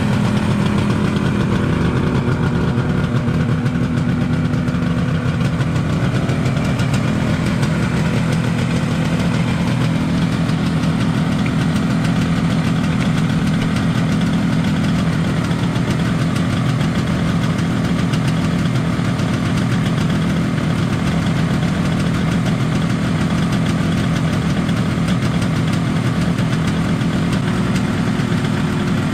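1973 Kawasaki H1 500's air-cooled two-stroke three-cylinder engine idling steadily while warming up after a cold start. The owner thinks the idle on cylinder one needs to come up a little.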